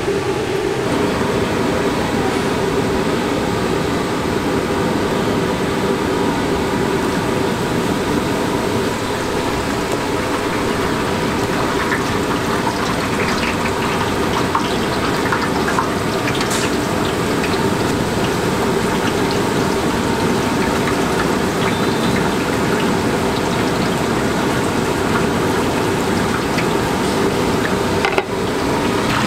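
Hot oil in a large wok sizzling and bubbling steadily as battered chicken deep-fries, with a steady hum underneath and a few sharper crackles around the middle.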